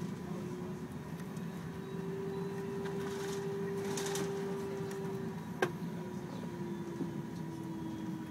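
Cabin noise inside an Airbus A380 rolling out on the runway after landing: a steady low rumble with a humming tone. The tone dips briefly about five and a half seconds in, together with a single sharp click.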